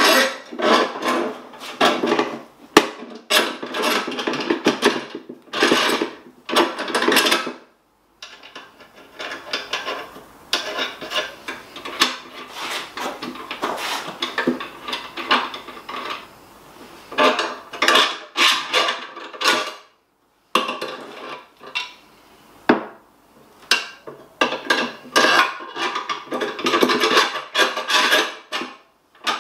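Hand tools on metal: a spanner turning nuts along threaded steel bars and the bars scraping and clicking through a bare Dnepr engine crankcase as it is clamped onto a steel stand, in rapid bursts with short pauses.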